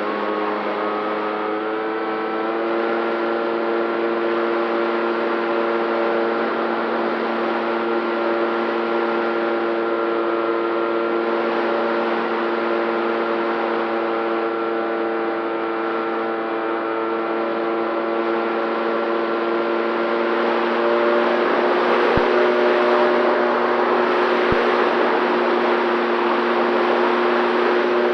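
FX-79 flying-wing RC plane's motor and pusher propeller running steadily in flight, a droning tone over rushing wind noise on the onboard microphone. Its pitch rises slightly in the first few seconds.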